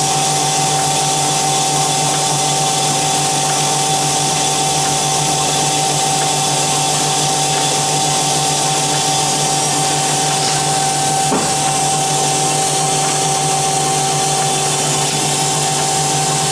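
Do-All TF-2021NC automatic vertical bandsaw running: a steady machine hum with a high, even whine, and one faint click about two-thirds of the way through.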